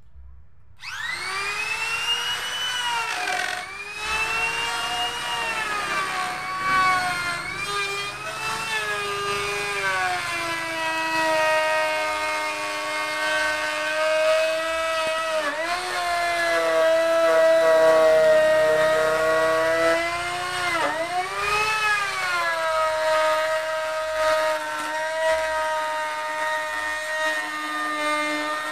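Handheld electric trim router starting up about a second in, then running with a high whine. Its pitch sags and recovers several times as the bit cuts a profile along the edge of a wooden window frame.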